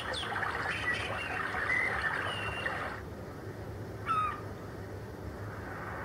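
Recorded birdsong from the built-in nature-sound track of an ultrasonic aroma diffuser, played through its small speaker: several short chirps and whistled glides over a steady hiss, with one more chirp about four seconds in.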